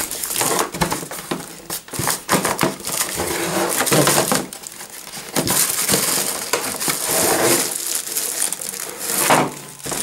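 Paper leaflets, a cardboard box and plastic wrapping being handled: continuous rustling and crinkling with frequent small knocks and scrapes of cardboard.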